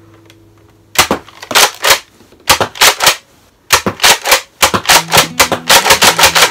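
Nerf Elite Alpha Trooper pump-action dart blaster being pumped and fired over and over. A string of sharp plastic clacks from the slide and the shots starts about a second in, comes in small groups, then follows more quickly near the end.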